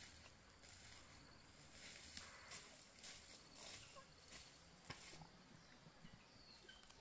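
Near silence, with faint rustling of branches and leaves as a small monkey climbs a tree: a run of soft crackles in the middle and one sharp click about five seconds in.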